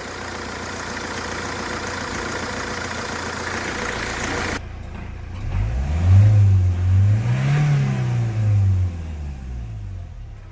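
Steady rushing noise that stops abruptly, then the Hyundai Creta's diesel engine is revved once: its low note climbs for about two seconds and falls back.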